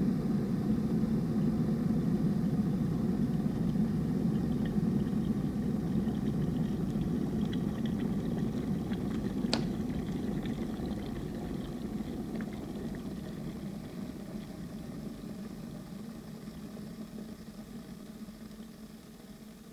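Kettle of water boiling with a steady low rumble, a sharp click about halfway through, after which the boiling slowly dies away.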